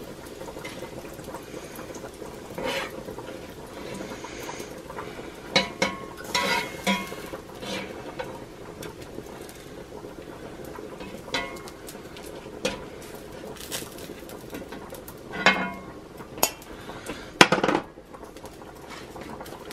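Hot bacon grease sizzling steadily in a cast iron skillet, with a slotted metal spatula scraping the pan and clinking against a ceramic bowl at irregular moments as diced bacon is lifted out.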